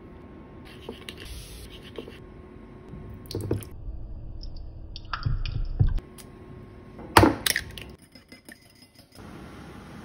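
Light kitchen handling at a counter: condiment squeeze bottles and small ceramic dishes being handled, with scattered clinks and a sharp knock about seven seconds in.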